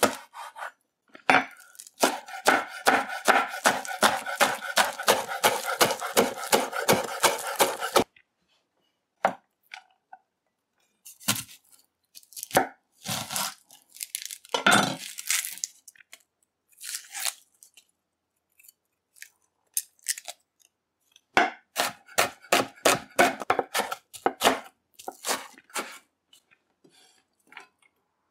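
Kitchen knife chopping scallions and onion on a bamboo cutting board: a fast run of strokes about four a second, then scattered single cuts, then another quick run of chopping later on.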